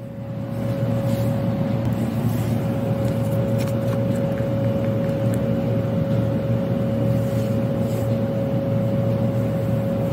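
A steady machine hum with a low rumble and one constant high whine, coming up about half a second in, with a few faint light clicks over it.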